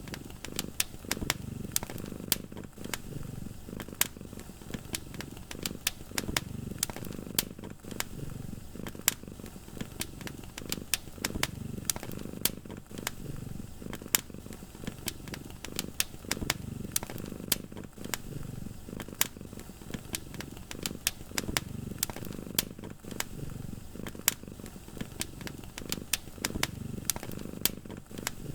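Fireplace fire crackling with frequent sharp pops at irregular intervals, over a low cat purr that swells and fades every second or two.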